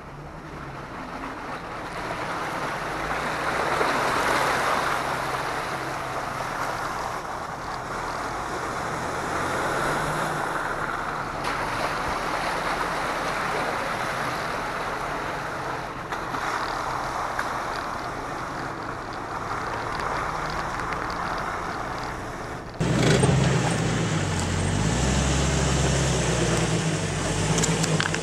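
Off-road vehicle driving along a dirt and creek-bed trail: a low engine hum under a steady rushing noise of tyres and water. About 23 s in it changes abruptly to the louder, close-up engine of a lifted Jeep Cherokee XJ working as it crawls up a rock ledge.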